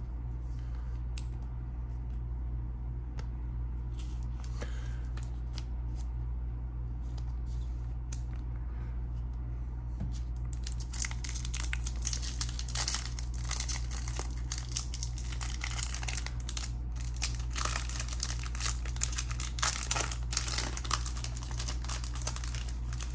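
Foil wrapper of a Topps Pristine baseball card pack crinkling and tearing as it is peeled open by hand, starting about halfway in. A steady low hum runs underneath.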